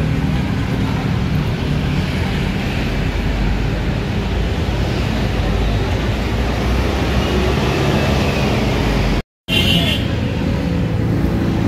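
Scania articulated bus's diesel engine running as the bus pulls away from the platform. After a brief cut, a second bus's engine is heard close by as it draws up.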